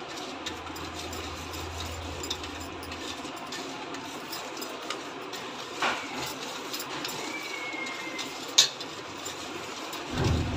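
A spoon stirring powdered sugar into melted ghee in a stainless steel bowl: soft scraping with scattered clicks of the spoon against the steel, the loudest a sharp click about two-thirds of the way through.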